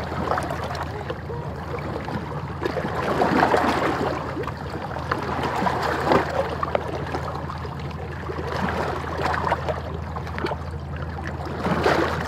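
Sea water lapping and gurgling against shoreline rocks, swelling every two or three seconds, over a steady low hum.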